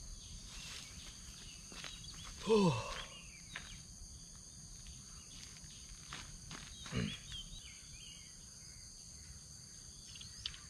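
Steady high-pitched insect chorus, with two brief low murmurs from a man's voice, about two and a half and seven seconds in, and faint scattered clicks and rustles.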